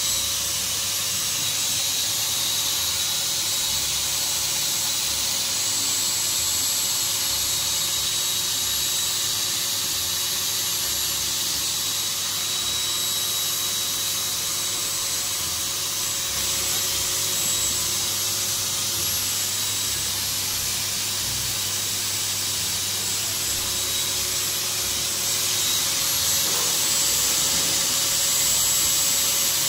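Electric air pump running steadily, blowing air through a hose into the PVC tube of an inflatable boat. A constant whine that gets a little louder near the end.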